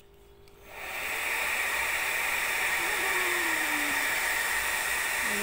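Handheld hair dryer switched on under a second in, then blowing steadily at an even level.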